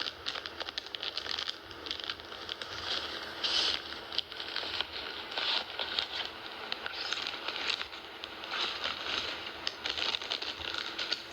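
Packaging crinkling and rustling as items are unwrapped, a steady run of irregular small crackles.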